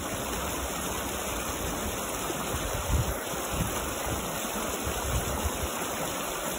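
Shallow mountain creek running over rocks: a steady rushing of water, with uneven low rumbles underneath.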